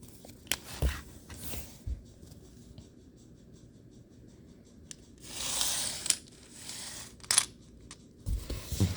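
LEGO plastic pieces being handled: several sharp separate clicks and clacks, with about a second of rustling a little after five seconds in.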